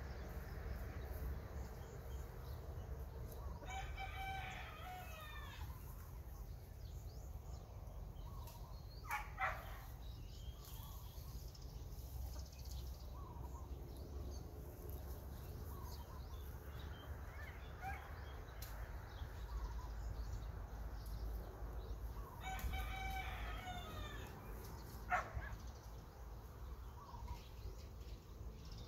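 A rooster crowing twice, each crow about two seconds long, some way off. Two short sharp clicks fall between and after the crows, over a steady low rumble.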